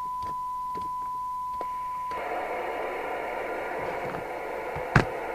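FM CB radio's loudspeaker playing a steady test tone from a signal generator over receiver hiss, the sign of a weak signal just above the squelch; the tone stops about two seconds in, leaving the hiss, and a sharp click comes near the end.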